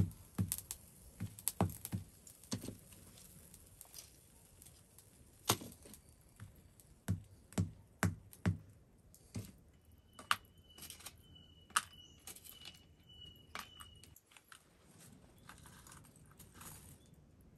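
A hand-held hammer stone knocks on a hot iron bloom on a flat stone anvil, forging it: dull knocks at two to three blows a second that stop a few seconds in. Slower, scattered knocks follow through the middle.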